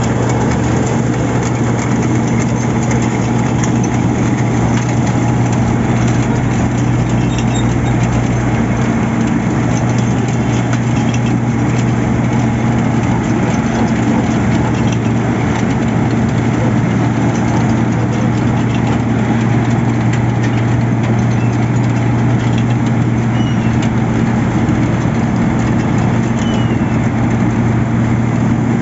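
Heavy construction-machine engine running steadily at a constant speed, a loud, even hum with no revving or breaks.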